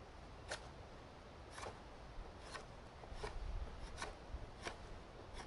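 Knife blade shaving wood from a throw stick in about six short carving strokes, roughly one a second, each a brief dry scrape.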